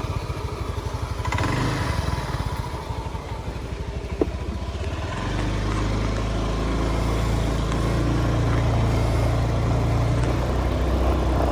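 Motorbike engine idling with a quick, even putter, then running with a steadier, louder drone from about five seconds in.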